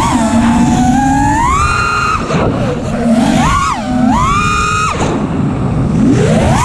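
FPV quadcopter's brushless motors whining over rushing prop and wind noise. The pitch climbs and drops steeply several times with the throttle, falls away about five seconds in, and climbs again near the end.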